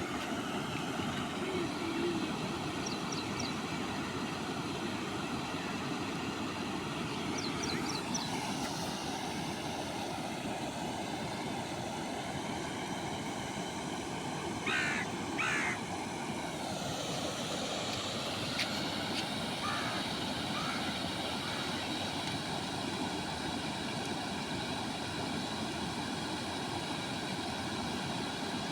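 A steady engine-like drone whose pitch shifts slightly, with a few short high bird chirps and two brief calls about halfway through.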